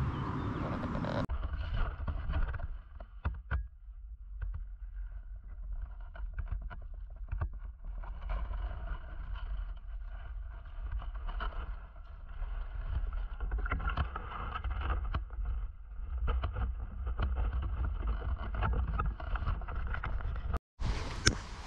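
Water splashing and sloshing around a landing net as a trout is netted and lifted out, with many short knocks and clicks from handling over a steady low rumble.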